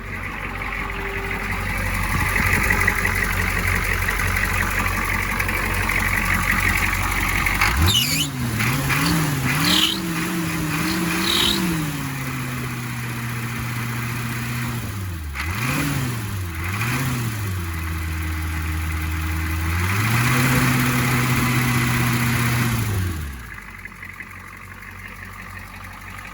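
1984 Ford F-250's 6.9 L IDI V8 diesel running just after being started: a steady idle, then from about eight seconds in the engine is revved up and down in several throttle blips with steady stretches between them, and the revs fall away near the end.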